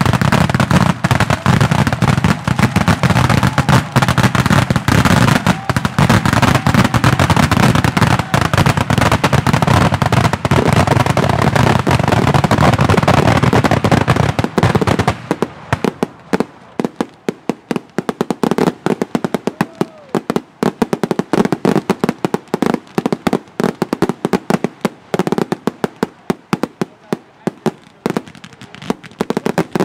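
Mascletà: strings of firecrackers exploding in a dense, continuous barrage. About halfway through it thins out into rapid separate cracks.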